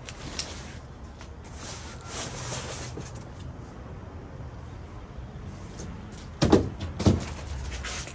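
Cardboard packaging being handled: rustling and scraping as a cardboard-wrapped aluminum radiator is pulled from its carton, then two loud thumps about half a second apart near the end as the empty box and the packed radiator are put down on concrete.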